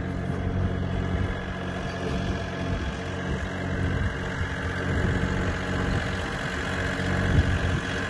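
Farm tractor engine running steadily at a low, even speed.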